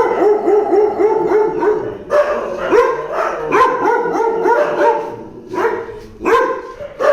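Dogs yelping and barking in rapid short cries, several a second, with a brief lull about five seconds in.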